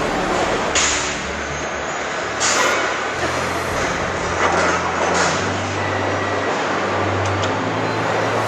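Assembly-plant machinery noise: a steady mechanical hum with short bursts of hissing air.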